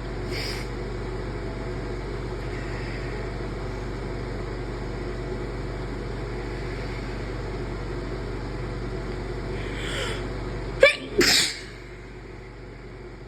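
A person's induced sneeze: a breathy intake, then one loud sneeze in two quick bursts near the end. A steady low hum runs underneath and drops away right after the sneeze.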